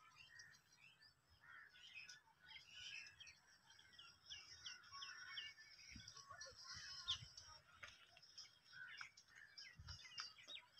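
Faint outdoor birdsong: small birds chirping and twittering in quick, repeated notes, with a few soft low thumps.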